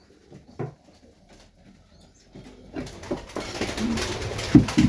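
Domestic pigeons cooing softly in a loft, with a louder rush of noise in the second half.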